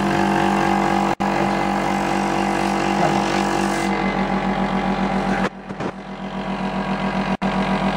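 Small air compressor running in place of steam to drive a model steam engine: a steady mechanical hum. About halfway through the sound dips and comes back as a rapid pulsing that grows louder. The sound cuts out for an instant twice.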